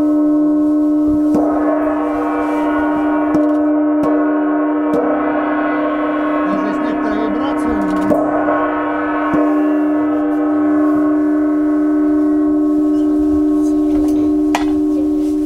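Hanging Chinese gong struck again and again with a felt mallet, ringing with one steady deep tone under a shimmer of overtones. The shimmer swells in the middle and thins out near the end.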